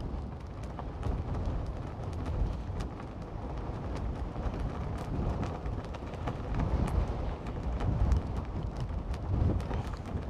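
Wind buffeting the microphone in gusts: a rough, low rumble that swells and fades, with faint scattered ticks.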